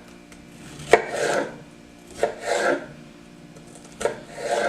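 Kitchen knife slicing bell peppers on a cutting board: three strokes, each a sharp knock of the blade on the board followed by a short scraping slide.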